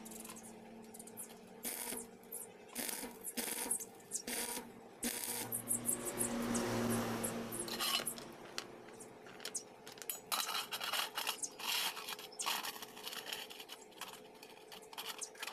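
Motorcycle roller chain and pliers clinking and scraping against a steel plate as the chain is handled into place, in many short irregular clicks, with a longer rustling scrape around the middle.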